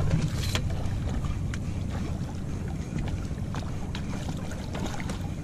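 Steady low rumble of wind and water on the microphone at the boat's side, with a few faint splashes and clicks as a hooked fish is drawn up to the landing net at the surface.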